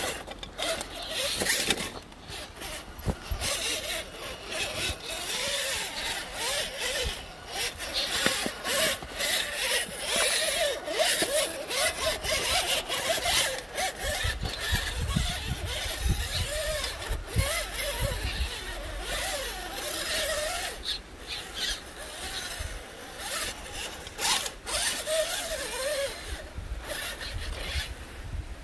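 1/8-scale RC rock crawler working over rock: its small electric motor and gears whine, rising and falling with the throttle, while the tyres and chassis scrape, click and clatter against the stone.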